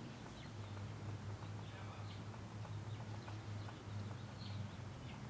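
Birthday candle soaked in burning oil and alcohol, its flames giving scattered faint crackles and ticks over a steady low hum, with a few faint high chirps.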